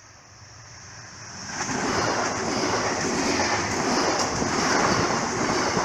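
Red and white S-Bahn electric multiple unit approaching and passing close by: a rush of wheels on rail and air that swells over the first two seconds, then holds steady as the carriages go past.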